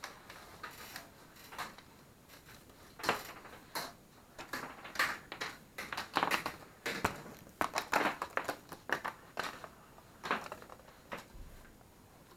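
Two marbles rolling down a homemade paper-and-tape marble run, with irregular clicks and knocks as they drop and strike the chutes and track pieces.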